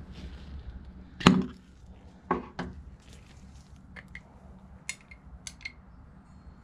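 A glass jelly jar with a metal screw lid being opened and handled: a sharp knock with a short ring about a second in, two lighter clacks shortly after, then a few faint high clinks.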